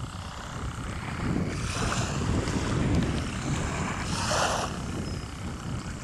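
Wind buffeting the microphone with a steady low rumble, over small sea waves washing on a sandy shore. Two swells of surf hiss rise and fade, about two seconds in and again about four seconds in.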